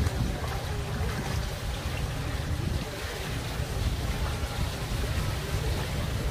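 Swimming-pool water lapping and sloshing close to a phone held at the surface, over a steady low rumble.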